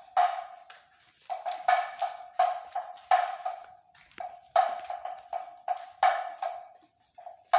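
Kentongan, a bamboo or wooden slit drum, beaten in a steady rhythm of sharp, ringing knocks at about three or four strikes a second, with short breaks: the patrol signal struck during a night watch round.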